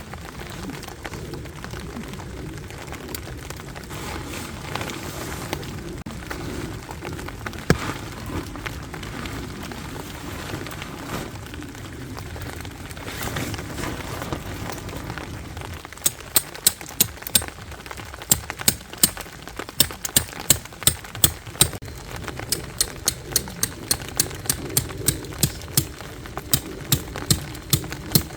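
Rain pattering steadily on a tent. From about halfway through, sharp irregular taps come in over it, two or three a second.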